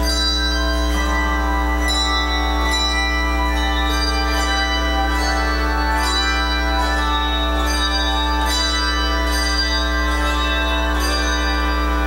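Handbell choir ringing a piece: tuned bronze handbells struck about every half second to a second, each note ringing on and overlapping the next, over steady sustained low tones.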